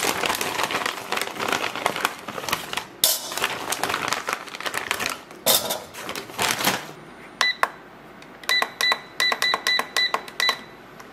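A plastic bag crinkling and rustling as frozen chicken nuggets are put into an air fryer basket. About seven seconds in, a quick series of short beeps starts as the air fryer's panel buttons are pressed to set the time and temperature.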